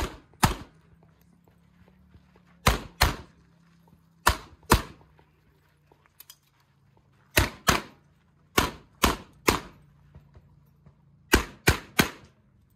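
Semi-automatic pistol fired in quick pairs, about fourteen shots in six groups with pauses of one to three seconds between them; the last two groups are three shots each. The pairs are the double taps of a practical-shooting stage, two shots per target.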